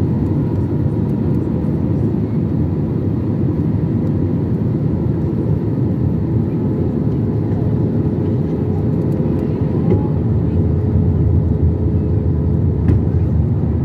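Airbus A321-200 cabin noise in flight on approach, heard inside the cabin: a steady low rumble of the engines and airflow with a faint steady hum, growing slightly louder from about ten seconds in.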